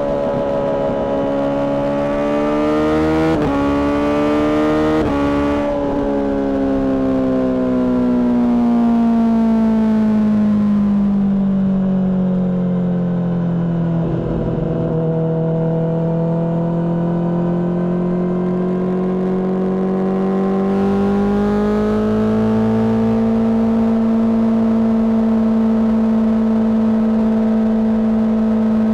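Honda CBR600RR's inline-four engine through a Mivv exhaust, running under way: the revs climb in short steps early on, sink slowly for about ten seconds, then rise again about 21 seconds in and hold steady.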